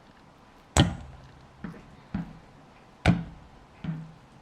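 Kitchen knife cutting raw chicken breast into bite-size pieces and knocking on a chopping board: five knocks, two of them much louder than the rest.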